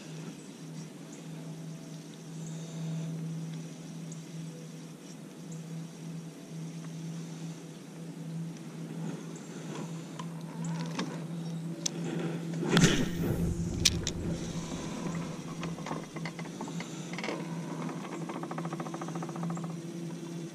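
Electric trolling motor running with a steady low hum. About 13 seconds in there is a brief loud thump and rustle, and near the end comes the fine, rapid ticking of a spinning reel being cranked.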